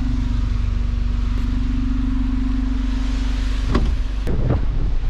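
A Chrysler K-car driving, with a steady low rumble and hiss of road and wind noise and a steady hum. The hum cuts off with a click about four seconds in, among a few short knocks.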